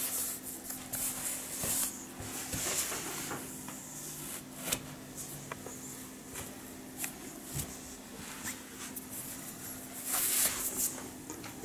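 Cotton sport socks rustling and brushing as socked feet rub together, with a few soft taps, then a louder rustle near the end as a sock is pulled off the foot by hand.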